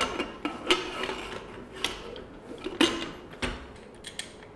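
Pressure cooker lid being fitted and its handle locked shut: about five sharp metallic clicks and clunks over a few seconds, some with a short ring.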